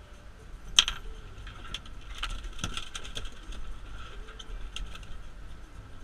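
Hands working a fishing landing net: a sharp click about a second in, then an irregular run of light clicks, taps and rattles as hook and fish are worked loose from the net's mesh.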